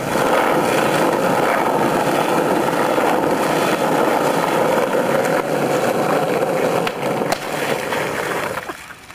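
Skateboard wheels rolling on asphalt, a steady loud rumble. A couple of sharp clacks come about seven seconds in, and the rolling fades near the end.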